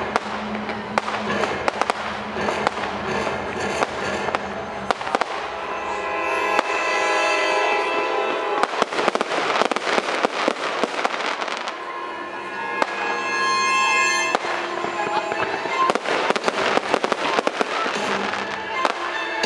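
Fireworks display going off: a dense run of sharp bangs and crackling from bursting shells and fountains, with music playing underneath.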